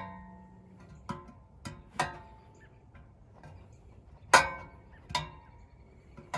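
Several sharp metallic clinks and taps, each ringing briefly like struck sheet metal, the loudest about four seconds in. They come from fitting the condenser fan blade onto the new fan motor's shaft.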